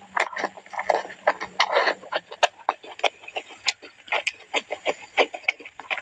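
Close-up eating sounds: grilled chicken with gravy being chewed with wet lip smacks and mouth clicks, about three to four a second, loud and irregular.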